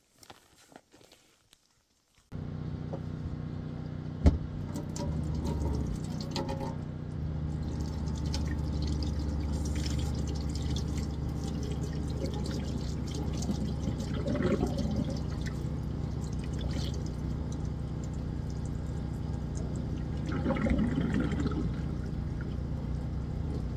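Water pouring and splashing as dressed partridges are rinsed to wash off loose feathers, starting abruptly a couple of seconds in, over a steady low hum, with a few knocks.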